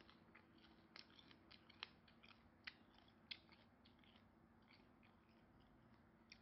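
Faint eating sounds: a string of irregular sharp clicks from chewing and handling shrimp, over a low steady hum.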